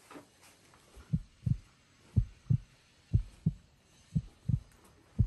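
Heartbeat sound effect: low double thumps, lub-dub, repeating about once a second, starting about a second in.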